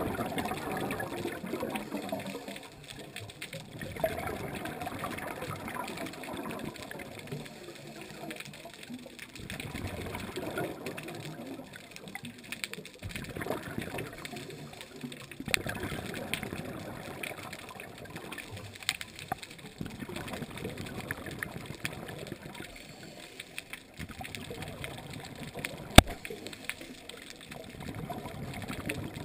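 Muffled underwater rushing and bubbling heard through a camera's waterproof housing, swelling and fading every few seconds, with a few sharp knocks, the loudest near the end.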